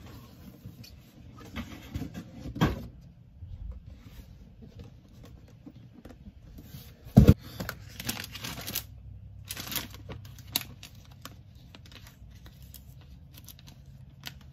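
Handling noises: paper and cardboard packaging rustling and climbing-stick parts knocking on a wooden workbench, in scattered clicks and rattles with one sharp knock about seven seconds in.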